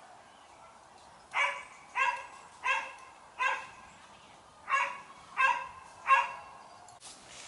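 A dog barking seven times: a run of four barks, a short pause, then three more.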